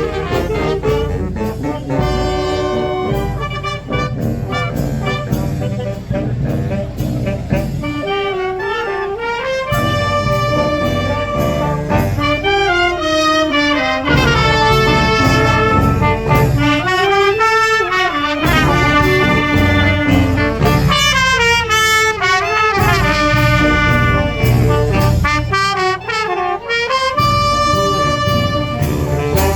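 Fanfare brass band playing a tune: trumpets and trombones in several parts over a steady drum beat.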